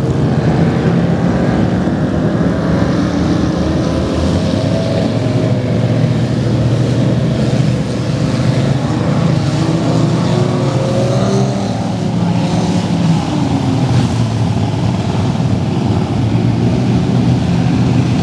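Powerboat engines running at speed in a steady drone whose pitch wavers slightly, over the rush of wind and water.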